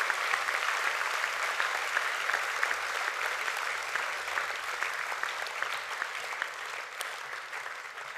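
Audience applauding in a hall, a dense steady clapping that gradually fades over the last few seconds.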